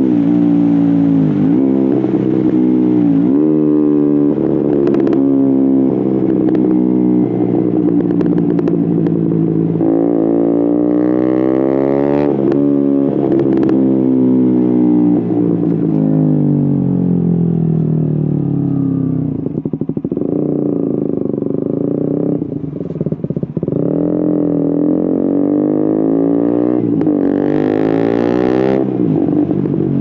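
KTM Duke 125's single-cylinder four-stroke engine through an Akrapovic exhaust with a GPR decat link, accelerating through the gears. It rises and drops sharply in pitch at each shift, falls away slowly as the bike eases off midway, and climbs again near the end.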